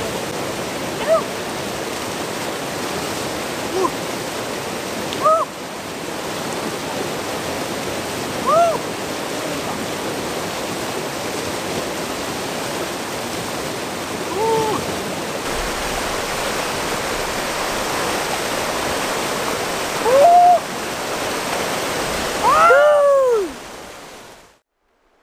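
Mountain river rapids rushing steadily, with a short rising-and-falling cry every few seconds, the loudest two near the end. The water noise cuts off suddenly just before the end.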